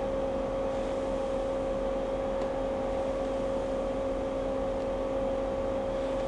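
A steady machine hum holding one constant pitch, with no change in level.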